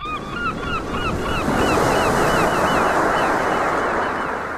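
A rapid series of honking bird calls, about four a second, over a rush of breaking waves that swells to its loudest about two seconds in and eases near the end.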